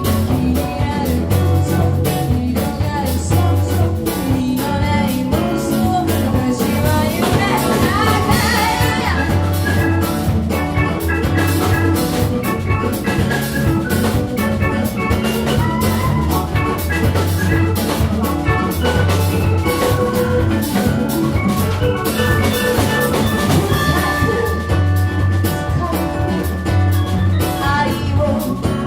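Ensemble music with drums and bright pitched percussion playing a steady beat.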